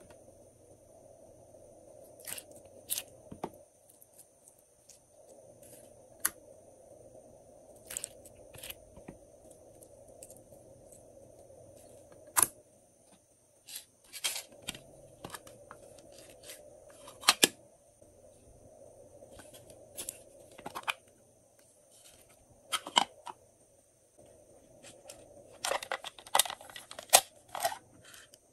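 Scattered clicks and taps of small plastic slime containers being handled. Near the end, a dense rattle of tiny polymer-clay flower slices poured from a plastic cup into a glass tray.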